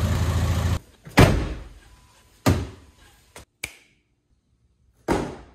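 Mk5 Volkswagen Jetta TDI's diesel engine idling, cutting off abruptly under a second in; then three sharp thuds of a car door shutting, each with a short ring, and two light clicks between them.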